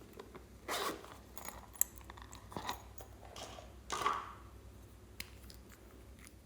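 Slime being squished and pulled by hand, giving irregular sticky squelches and small crackling clicks, with two louder squishes about a second in and about four seconds in.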